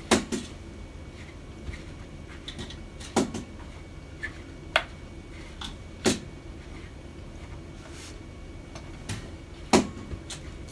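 Close-up eating of a chocolate muffin, pieces torn off by hand and bitten: scattered sharp clicks, with about five loud ones a second or more apart and fainter ones between.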